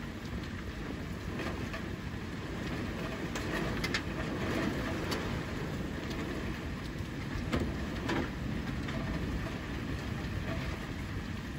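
A storm with heavy rain and strong wind, making a steady rushing rumble, with a few sharp knocks. The loudest knocks come about four and about seven and a half seconds in.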